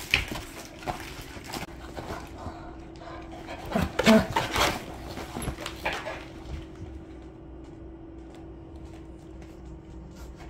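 A dog moving about in an empty collapsible plastic dog pool, the vinyl rustling and bumping in scattered bursts, loudest about four to five seconds in, with a short dog vocal sound in that cluster.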